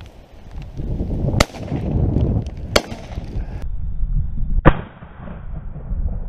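Three shotgun shots fired at passing wood pigeons, the first two about a second and a half apart and the loudest near the end, over wind rumble on the microphone.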